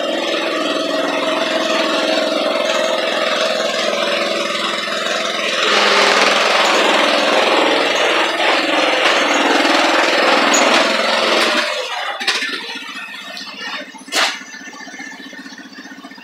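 Hayter 19/40 ride-on garden tractor's 19 hp V-twin engine running. It gets louder about six seconds in, then drops back to a quieter steady run about twelve seconds in, with one sharp click near the end.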